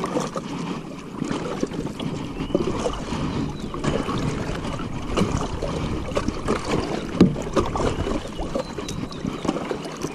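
Kayak paddle strokes through calm water: splashing and dripping as the blades dip on alternate sides, with many small clicks and knocks, the sharpest about seven seconds in. A steady low rumble of wind on the microphone runs underneath.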